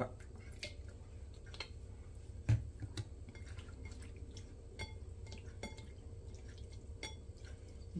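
Apple cider vinegar dripping from a bottle onto raw fish in a bowl, then a hand working the fish in the vinegar: faint scattered wet drips and clicks, with one louder bump about two and a half seconds in.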